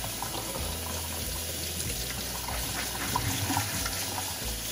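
Kitchen faucet running a steady stream onto soaked pinto beans in a stainless steel mesh colander, the water trickling and splashing through the beans as a hand stirs them around to rinse them.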